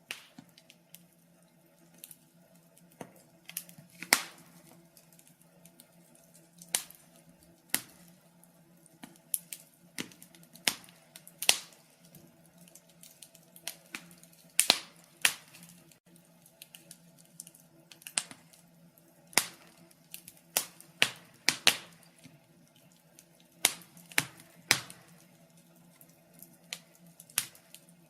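Wood fire crackling: irregular sharp pops and snaps, several loud ones among many small ticks, over a faint steady low hum.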